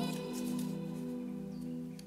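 Soft background music: held, sustained chords with no speech over them.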